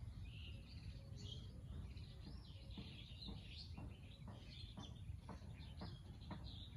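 Several birds chirping and twittering in many short, overlapping high calls, with quick sharp chip notes repeating from about two seconds in. A low steady background rumble runs underneath.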